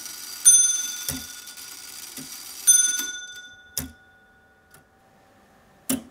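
Quarter bell of a c1500 Gothic wrought-iron foliot wall clock struck twice by its iron hammer: a bright ring about half a second in and another about 2.7 s in, each dying away, the second stopping a little after 3 s. Through it come the uneven ticks of the iron verge-and-foliot movement, carrying on alone near the end.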